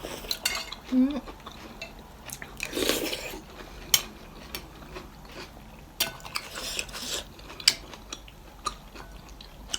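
Spoon or cutlery clinking against a bowl in a few scattered sharp taps, with soft eating and slurping noises between them.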